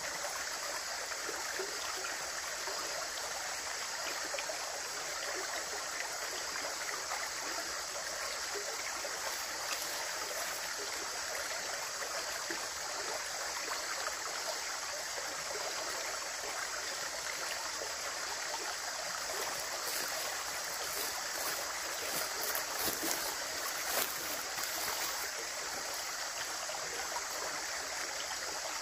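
Running water flowing steadily, an even rushing wash, with a few brief sharper clicks about two-thirds of the way in.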